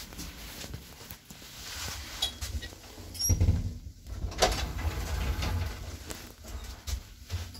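Inside a KONE traction elevator car, the sliding car doors close with several sharp clicks and clunks. From about three seconds in, a steady low hum sets in as the car starts to move.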